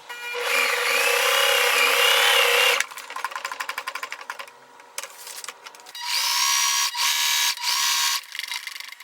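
Electric sewing machine stitching through paper. The motor runs at speed with a wavering whine for about two and a half seconds, then gives a few seconds of quick ticking stitches, and starts up again about six seconds in, running in short bursts.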